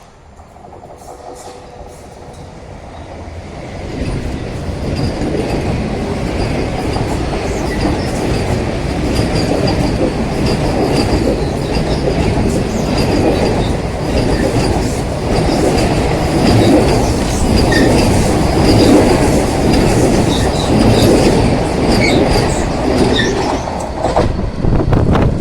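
Vande Bharat Express electric train set passing close by. The sound builds over the first four seconds into a loud, steady rumble of the coaches, with wheels clattering over rail joints and a thin high squeal above it.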